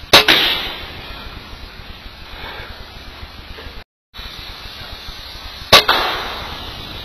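Two PCP air rifle shots, each a sharp crack followed by a short echoing tail: one just after the start and one near the end, with the sound dropping out briefly between them.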